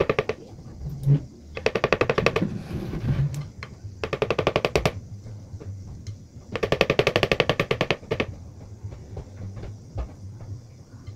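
Silicone spatula scraping and chattering against the rim and wall of a plastic stand-mixer bowl as a thick sweet is knocked off it. It comes in four bursts of rapid rattling, about a dozen clicks a second, each lasting about a second.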